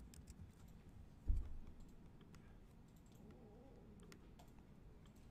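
Quiet, scattered typing and clicks on a laptop keyboard, with one low thump about a second in.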